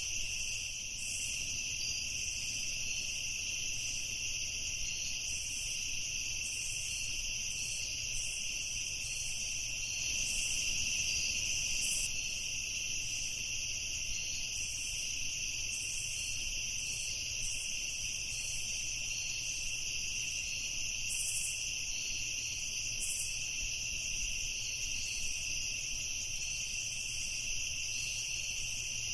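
Steady night chorus of crickets, a continuous high trilling that doesn't change, over a faint low rumble.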